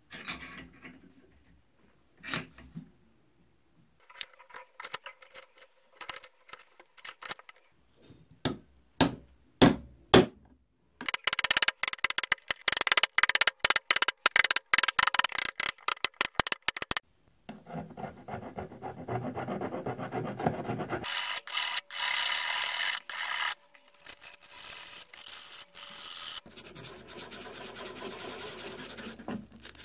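Hand work on a draw knife's beech-wood handle and its metal tang end: scattered taps and knocks, then a fast run of sharp loud strikes lasting several seconds around the middle. After that comes steady rubbing and scraping as the knob and tang end are sanded down.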